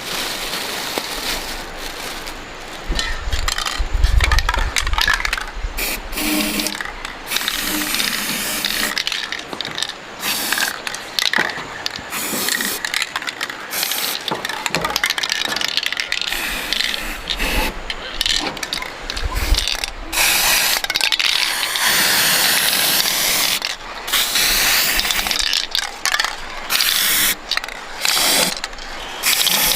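Electric arc welding on an iron frame: an irregular crackling hiss that starts and stops in stretches as the arc is struck and broken, with a few dull knocks.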